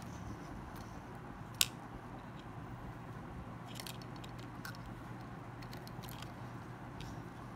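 Small, sharp clicks and ticks from a mobile phone's plastic parts and small tools being handled during disassembly, a handful of them spread out, with one louder click about a second and a half in, over a steady low hum.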